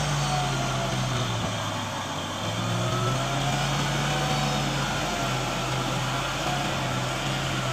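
Kubota M6040SU tractor's diesel engine running steadily while pulling a plough through mud, with a brief dip in engine note about two seconds in.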